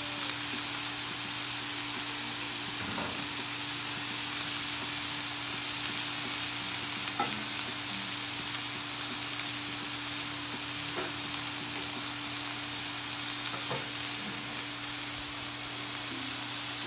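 Beef smash burger patties and hot dogs sizzling on a Blackstone flat-top griddle: a steady frying hiss with a few faint pops, over a steady low hum.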